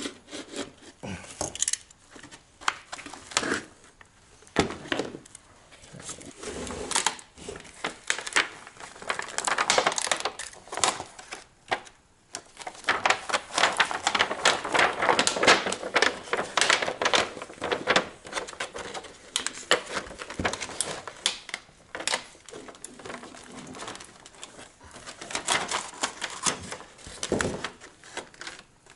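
Wide plastic heat shrink tubing crinkling and rustling with many irregular crackles as it is handled and slid over a battery pack.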